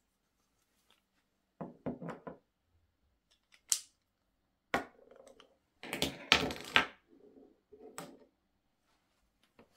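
Small makeup products (bottles, a lip-gloss tube, a brush, pencils) being set down one by one on a desk: a string of light knocks and clicks in short clusters, with silent gaps between.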